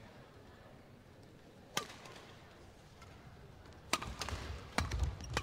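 Badminton racket strikes on a shuttlecock and players' footfalls on the court. There is one sharp hit about two seconds in. About four seconds in a rally starts: crisp hits less than a second apart over low thudding steps.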